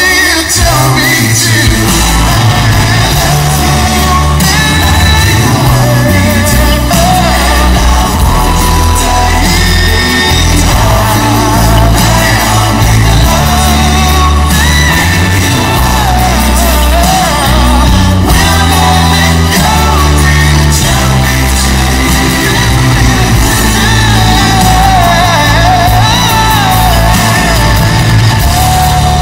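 R&B ballad: a male vocal group singing over a heavily boosted bass line, in a remix processed for a surround '8D' effect.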